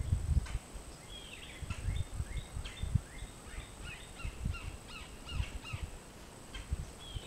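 Wild birds chirping and calling, a busy run of short repeated notes, many of them quick downward slurs, over low irregular rumbles.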